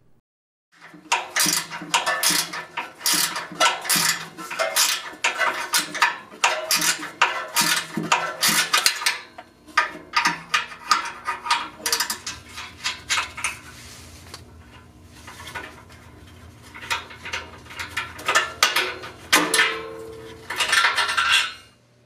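12 mm ratcheting wrench clicking in quick runs as it loosens a nut on the catalytic converter's exhaust flange. The clicking stops for a few seconds in the middle, then starts again.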